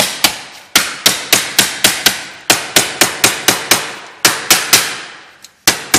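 Hammer striking an aluminum sheet over a wooden form block, bending the flange of an aircraft wing rib. The taps come in quick runs of about four a second with short pauses between runs, and each strike rings briefly.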